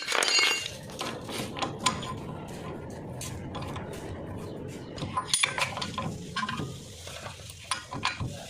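Metal hand tools clinking and scraping against car brake parts. There is a clatter at the start, a steady scrape for a few seconds, then more sharp clinks about five seconds in.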